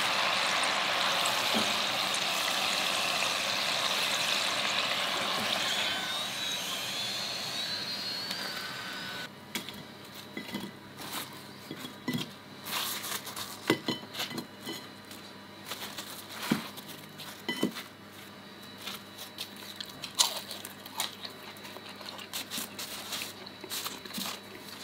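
Pierogi deep-frying in hot oil in a pot, a steady, dense sizzle that cuts off suddenly about nine seconds in. After that, quieter scattered light taps and clicks as the fried pierogi are picked up and set on a plate.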